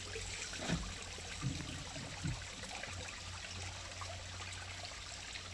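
Spring water trickling and splashing down a rock face in a thin steady stream, with a few brief low thumps in the first two and a half seconds.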